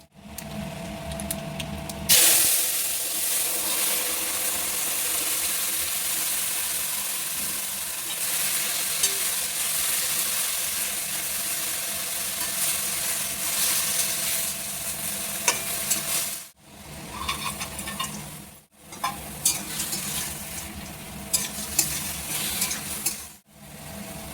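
Food frying in hot oil in a pan: a loud sizzle starts suddenly about two seconds in, with light clicks of a utensil stirring. The sound drops out briefly three times later on.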